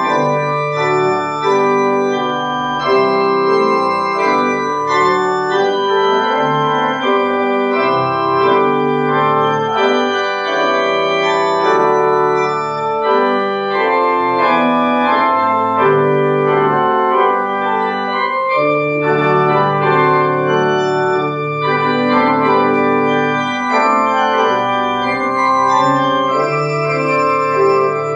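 Organ playing a piece in full sustained chords, the held notes changing every second or so.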